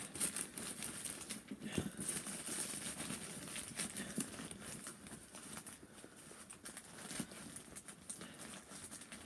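Irregular rustling, crinkling and small clicks of packing stuffing being pushed back into a soft faux-leather Loungefly mini backpack by hand, fainter toward the end.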